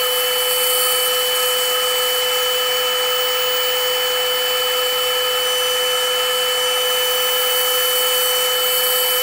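Grizzly G0555LX 14-inch bandsaw running with a steady whine while a thin strip is resawn from a block of red oak, with the dust collector running.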